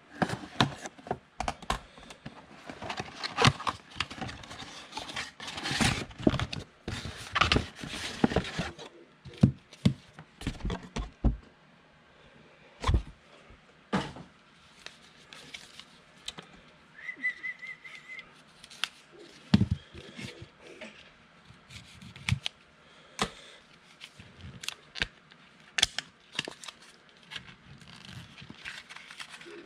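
A shrink-wrapped trading-card box being torn open and handled: crinkling and tearing of plastic wrap for the first several seconds, then scattered taps, clicks and thunks of cardboard and packs.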